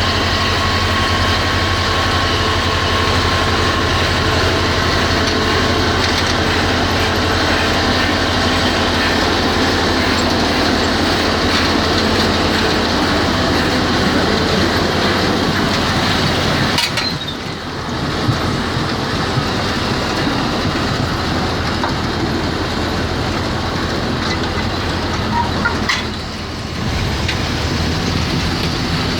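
A tractor-drawn potato harvester running: a loud, steady machine noise with a fast, continuous clatter, as from its conveyor chains. The sound dips briefly twice, about halfway through and near the end.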